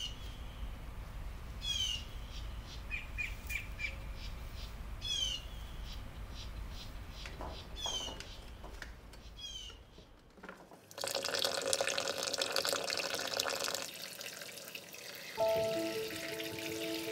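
Small birds chirping in short repeated calls. About eleven seconds in, a stream of water starts pouring onto fresh strawberries in a bowl as they are rinsed, and soft music with held notes comes in near the end.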